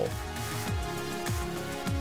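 Background music: a held chord over deep bass notes that drop in pitch, a little under two a second.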